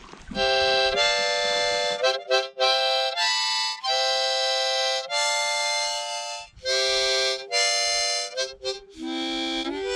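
Harmonica music: a tune of held chords in short phrases with brief gaps, moving to a lower chord near the end.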